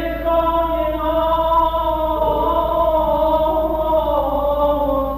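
Zoorkhaneh morshed's solo chant: a single man's voice holding one long drawn-out note, its pitch shifting slightly about two seconds in, with no drum beats under it.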